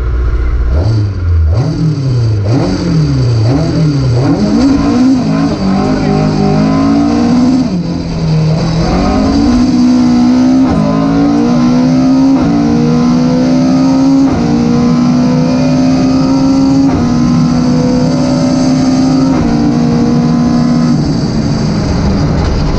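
Rally car engine heard from inside the car: revved up and down several times at the stage start, then launching and accelerating hard, the pitch climbing and dropping with each upshift. It then holds at steady high revs with brief lifts.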